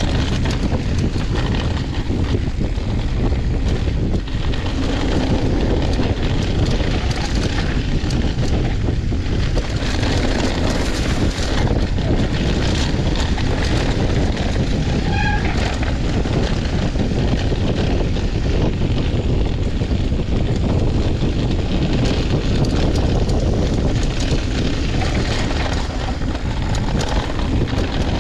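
Wind buffeting the camera microphone over the rattle and crunch of a mountain bike rolling down loose, dusty dirt singletrack.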